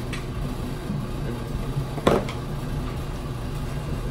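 Steady low hum of a running laundry machine, with one brief louder sound about two seconds in.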